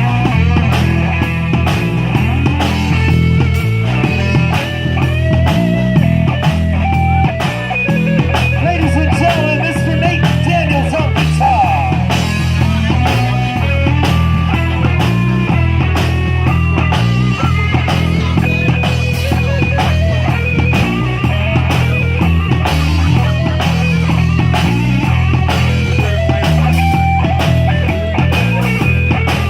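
A live band playing an upbeat number: a drum kit keeps a steady beat under bass and guitar, with a wavering lead melody over the top.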